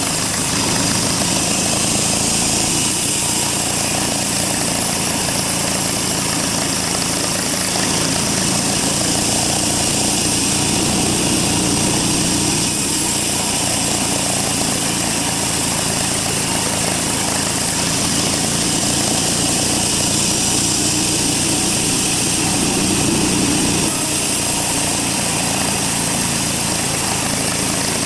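Sawmill bandsaw running, a loud, steady mechanical noise with a strong hiss.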